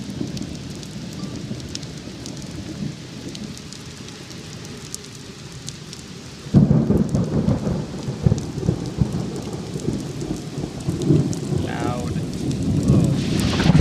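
Thunder over steady rain: a rumble dies away, then about six and a half seconds in a sudden loud clap breaks and rolls on as a long rumble. Scattered raindrop ticks sound through the rain.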